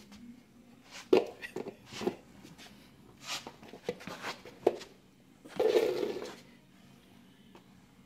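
A small plastic bowl being kicked along a hard floor: a few sharp knocks and scuffs, with a longer scraping stretch about two-thirds of the way through.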